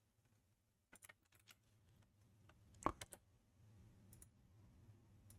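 Faint computer keyboard keystrokes and clicks, a few irregular taps with the loudest about three seconds in.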